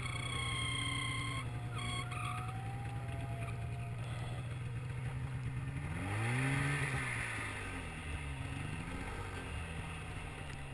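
A 2012 Polaris Pro-RMK snowmobile's two-stroke engine, built as an Indy Dan long-rod motor, running steadily while climbing through powder. About six seconds in, the pitch rises and then falls once as the throttle is opened and eased off.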